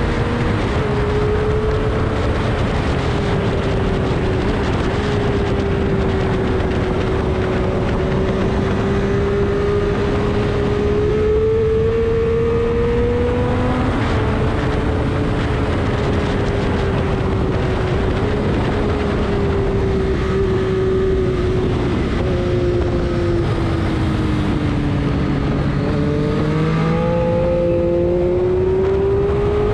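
Car engine running hard on a race track, its pitch climbing slowly and then dropping sharply about halfway through, falling and climbing again near the end, over a steady rush of road noise.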